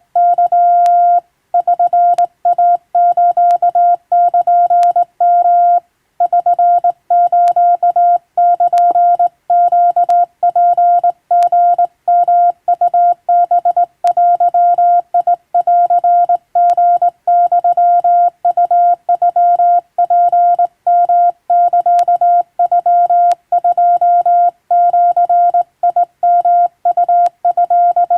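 Japanese wabun Morse code sent by hand on a telegraph key: a single steady mid-pitched tone keyed on and off in dots and dashes, with short pauses between characters and a few faint clicks.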